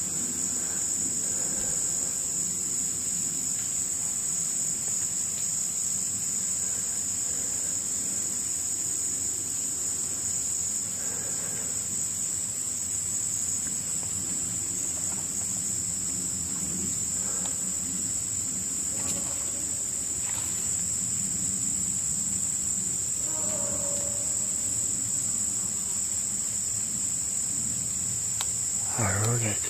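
Steady high-pitched chorus of insects, typical of crickets, trilling without a break. Faint pitched calls come and go a few times under it, and a short, louder pitched sound comes near the end.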